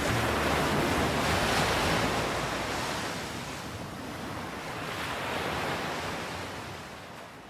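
Sea waves washing in, coming in two swells of surf noise and then fading out near the end.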